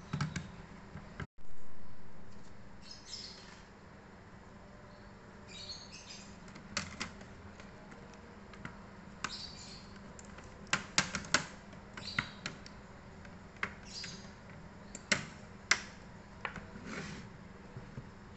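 Scattered sharp clicks and taps of small plastic and metal laptop parts being handled, some in quick clusters of two or three, as a Dell Latitude E7250 is put back together.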